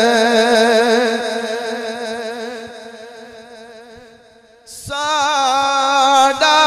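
A male naat reciter sings into a microphone. He holds a long wavering note that fades away about four seconds in, then starts a new sung phrase about a second later.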